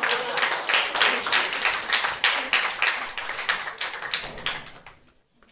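Audience applause of sharp, closely packed claps, dying away about five seconds in.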